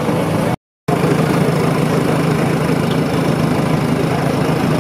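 A steady engine noise, like an engine idling, broken by a sudden dropout to silence for a fraction of a second just over half a second in, after which it carries on unchanged.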